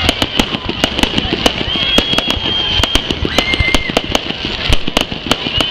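Fireworks going off at close range: a rapid, irregular string of sharp bangs and crackles, several a second, from bursting shells.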